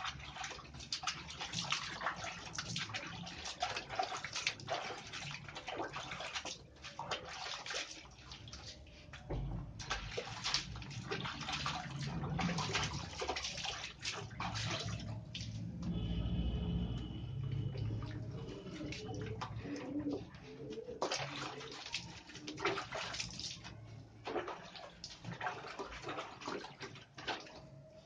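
Water splashing and sloshing in a plastic tub as a hand scoops it over a dog being bathed. The splashing comes in busy runs of quick splashes, easing off to quieter sloshing in the middle.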